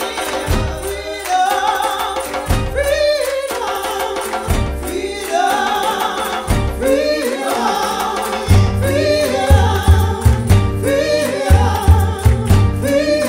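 Gospel-style singing over an electronic dance beat with regular percussion strokes. A little past halfway, a heavy pulsing bass line comes in.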